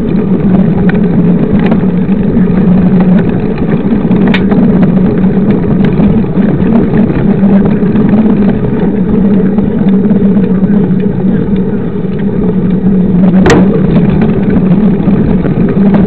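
Mountain bike riding fast on a dirt road, heard from beside its 29-inch knobby front tyre: a loud, steady rumble of tyre on dirt mixed with wind on the microphone. A few sharp clicks of the bike jolting over bumps, the loudest late on.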